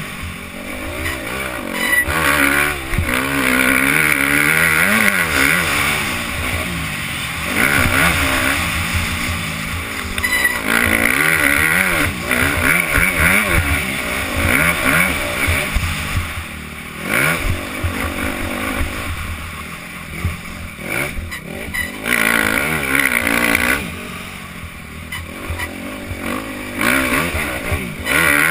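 Motocross bike engine heard from the rider's helmet, revving hard and backing off again and again as the throttle is opened and closed through the track's straights and turns, its pitch rising and falling.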